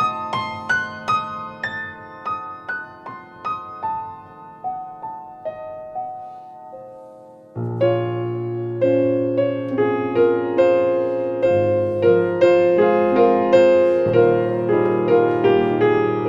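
Background music on a keyboard, piano-like: a slow line of single struck notes that fade away, getting quieter until about halfway through. Then a fuller passage comes in suddenly, with a steady bass line under closer-set notes.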